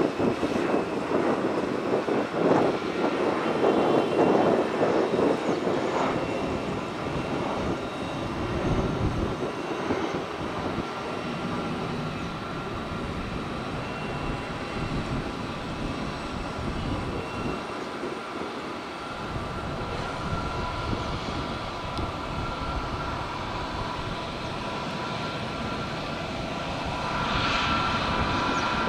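Jet engines of a Vietjet Air Airbus A321 airliner landing: a steady engine rumble, loudest in the first few seconds on final approach, then settling to a quieter, even run with a faint steady whine as the jet touches down and rolls along the runway.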